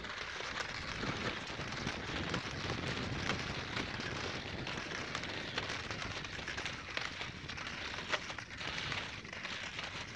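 Touring skis and poles crunching and scraping on firm snow as a group skins uphill: a continuous crackly noise dotted with many small clicks.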